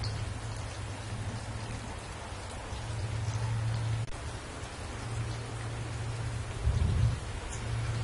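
Steady rain falling and splashing on a wet surface, with a low rumble underneath that swells briefly near the end.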